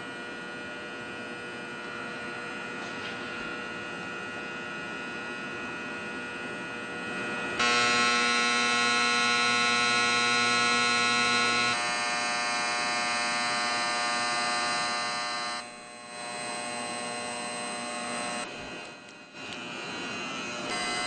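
Steady electrical hum, a buzz of many held tones that jumps to a louder, different set about a third of the way in and changes abruptly several more times.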